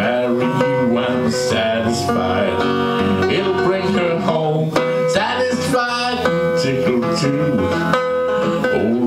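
Gold Supro metal-bodied resonator guitar playing an instrumental blues break, plucked notes and chords ringing out.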